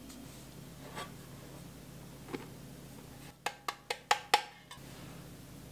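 Five quick, sharp taps of a hand slapping the bottom of an upturned enamel mug, knocking bread flour out into a glass bowl. Two faint knocks come before them.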